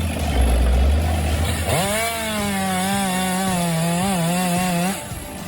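A low engine rumble, then about two seconds in a chainsaw revs up quickly and runs at high speed for about three seconds, its pitch wavering slightly, before stopping near the end.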